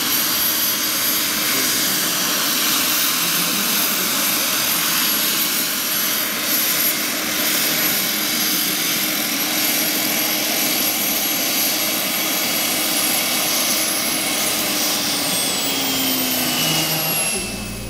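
Radio-controlled scale model SA-315B Lama helicopter running, with a steady high engine whine over the rotor noise. Near the end the whine falls in pitch as the engine winds down after the model sets down on the grass.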